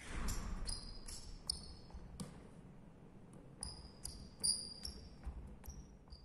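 Footsteps and short sneaker squeaks on a sports hall floor, a dozen or so, as a player moves across the court. The sound fades out at the very end.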